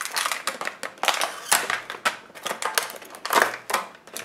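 Clear plastic blister packaging of a Hot Wheels card being handled and pulled apart, crinkling and crackling in a rapid, irregular run of small clicks.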